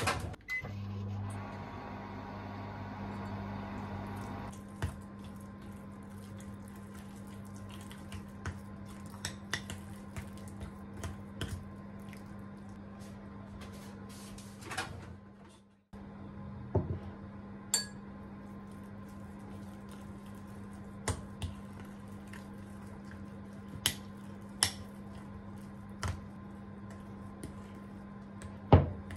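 Microwave oven running at 600 W, a steady low hum, with scattered light clicks and knocks. The hum breaks off briefly about halfway through and starts again, and a louder knock comes near the end.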